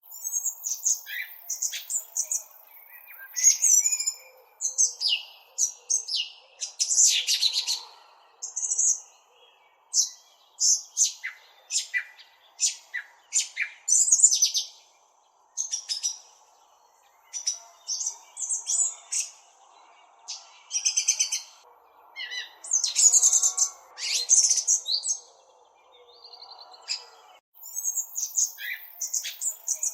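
A small songbird chirping and twittering close up: quick groups of short, high chirps broken by brief pauses, over a faint steady background noise.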